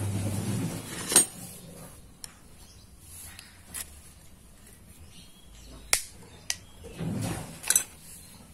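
Sharp metal clinks and taps from hand tools on an angle grinder's armature and bearing puller, about six separate strikes, the loudest about a second in. A low engine hum fades out in the first second.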